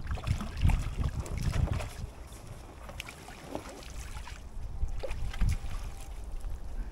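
Gusty low rumble of wind buffeting the microphone, heaviest in the first two seconds and again about five seconds in, with scattered light clicks.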